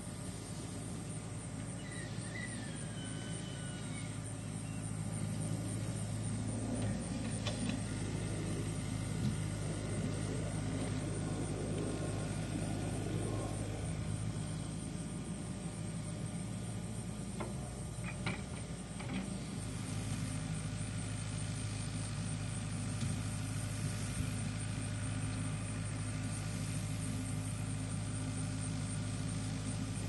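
Steady low mechanical drone, like a distant engine running, holding the same pitch throughout.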